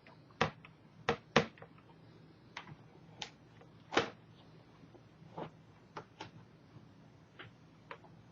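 Scattered clicks and light knocks of a small screwdriver and screws against the plastic screen housing of a Dell Inspiron N5030 laptop as the lower screen screws are lined up and driven in. About a dozen at uneven spacing, the loudest in the first second and a half and again about four seconds in.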